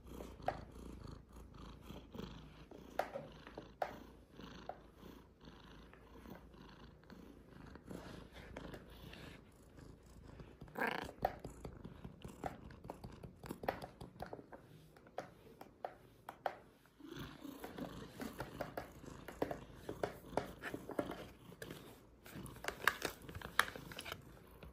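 Young cat purring, with scattered small clicks.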